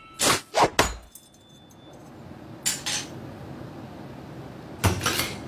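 A series of short, sharp knocks and clacks: four in quick succession in the first second, two close together near the middle, and two more just before the end.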